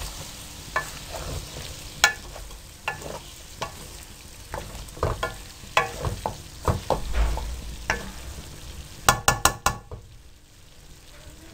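A spoon stirring and mixing potato fries in a metal pan over the heat, with irregular clicks and scrapes of the spoon on the pan over a faint sizzle. A quick run of clicks comes a little after nine seconds, then it goes quieter.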